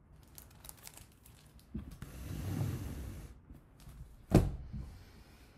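A hardcover picture book being handled: a few light clicks, then a rustling slide of pages and cover, then one sharp thump about four seconds in.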